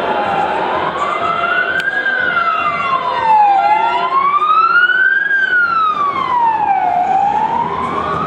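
Ambulance siren on an emergency run, sounding a slow wail that rises and falls about every three seconds.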